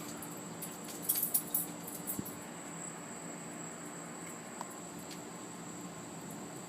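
Steady high, even chirring of crickets on a summer night over a faint low hum, with a few small clicks and rattles about a second in.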